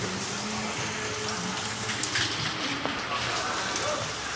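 Steady rush of a stream flowing over rocks.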